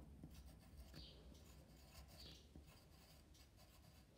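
Pencil writing on paper: faint, uneven scratching strokes as a word is written by hand.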